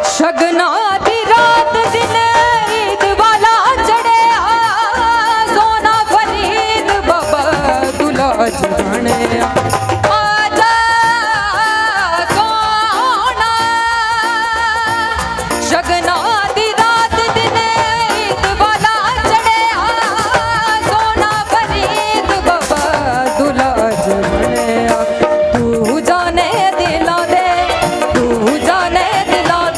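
A girl singing a folk song with ornamented, wavering melodic runs, over instrumental accompaniment and a steady drum beat.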